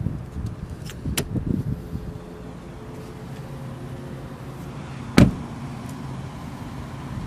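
The DS3's door is shut with one solid thump about five seconds in. Earlier, about a second in, there is a sharp click followed by a few clunks, all over a steady low hum.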